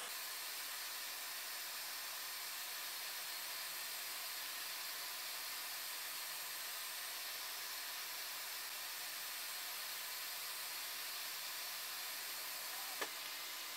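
Steady hiss of room tone, with one short click near the end.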